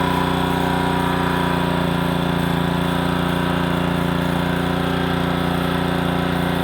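Small gas engine of a pressure washer running steadily while its pump draws in gravity-fed water and is still purging air.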